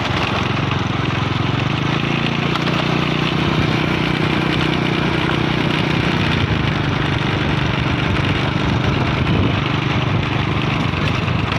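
Small motorcycle engine running steadily, its hum firmest a couple of seconds in and easing slightly later, over a constant rush of noise.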